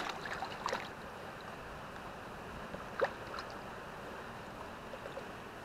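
Shallow water lapping and sloshing quietly among shoreline rocks, with a few small splashes in the first second and one more about three seconds in.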